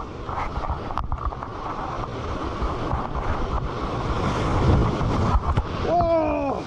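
Surf washing over shore rocks and wind buffeting the microphone. A short pitched call that falls in pitch sounds near the end.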